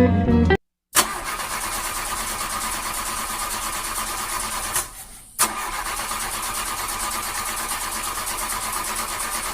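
An engine running steadily, with a brief drop about five seconds in.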